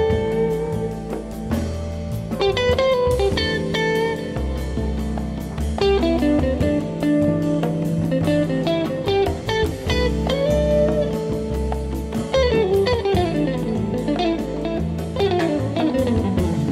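Background music led by a bluesy electric guitar over a bass line, with sliding notes in the last few seconds.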